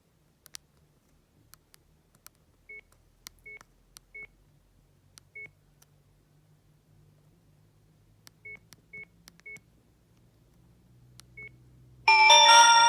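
Sony Ericsson S312 mobile phone: scattered key clicks and about eight short, high beeps as its buttons are pressed. About a second before the end, one of its original ringtones starts playing loudly.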